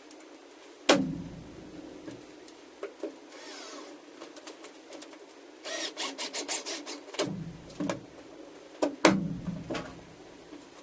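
Scattered knocks and clicks of tools and hard parts being handled, the loudest about a second in and about nine seconds in. Around six seconds in there is a quick run of about a dozen clicks.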